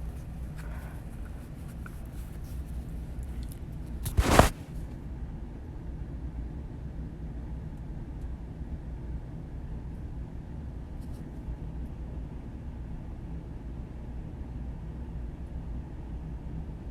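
Steady muffled low rumble of body sounds picked up by a microphone pressed against the body, with one loud brief rub or bump about four seconds in.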